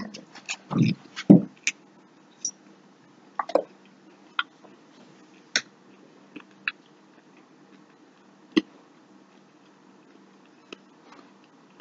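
Chewing a mouthful of fried beef liver: wet mouth smacks and clicks, loudest and closest together in the first second and a half, then only sparse single clicks.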